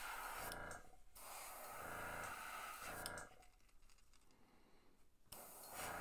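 Airbrush spraying fluorescent violet paint onto a crankbait lure blank in short blasts of hiss, about three, with a quieter gap before the last one near the end.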